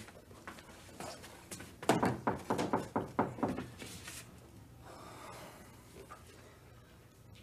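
A quick run of about seven knocks or clunks over a second and a half, starting about two seconds in, with fainter handling noises before and after.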